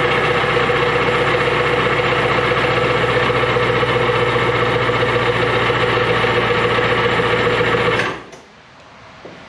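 Sea-Doo SP's two-stroke Rotax engine running steadily on choke, its first start after a carburetor rebuild. It is shut off about eight seconds in and dies away quickly.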